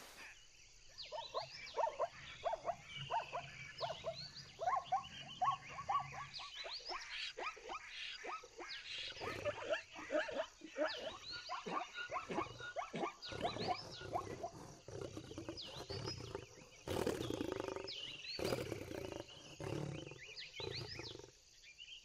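Wild animal calls in quick succession, several short pitched calls a second, with bird chirps above them and a louder, rougher stretch about three-quarters of the way through.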